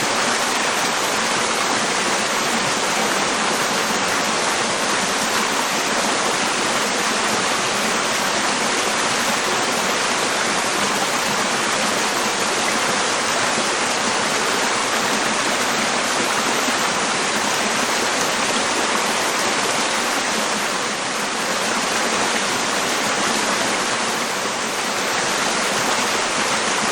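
Water rushing steadily over small creek waterfalls, flowing strong after heavy rain.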